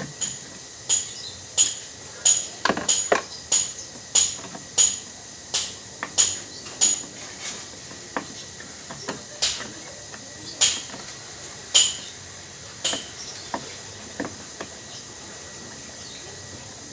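A hammer tapping on metal: a run of about twenty sharp, ringing taps, one every half second to a second, loud at first and growing fainter and sparser in the last few seconds.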